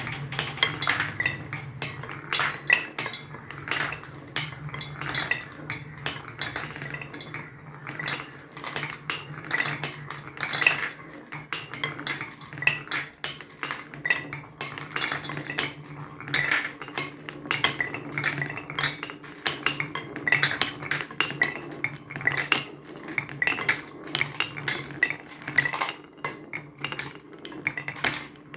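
Marbles rolling along grooved wooden tracks with a steady rolling rumble, clacking many times a second as they knock against the wood and drop onto lower channels.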